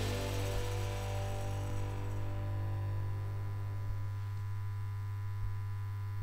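Outro music's last chord ringing out and fading over the first few seconds, above a steady low hum.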